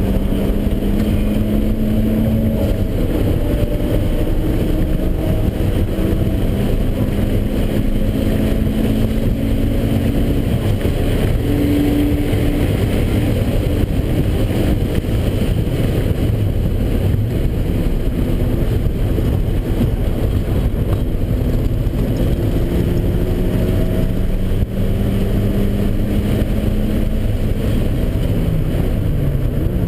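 Turbocharged Mazda Miata's four-cylinder engine running hard on track, heard from inside the cabin over wind and road noise. The engine note climbs slowly through long pulls, with a break about a quarter of the way in, a brief dip about 25 seconds in, and a falling note near the end.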